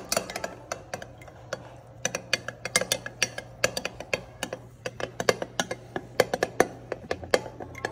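A metal spoon stirring a runny flour-and-water sourdough starter in a glass jar, clinking and tapping against the glass in quick, irregular strikes, several a second.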